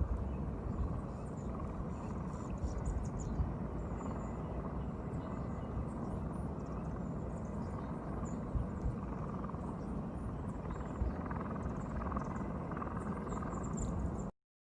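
Steady outdoor ambience with a low rumble, like wind or distant surf, and faint scattered high chirps.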